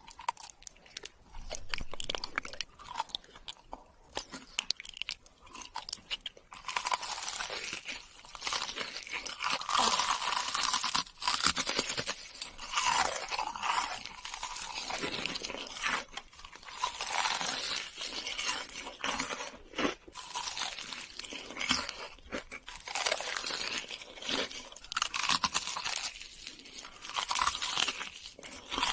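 A person biting and chewing crunchy food close to the microphone, in repeated bursts of crunching. It is fainter for the first few seconds and louder and more continuous from about six seconds in.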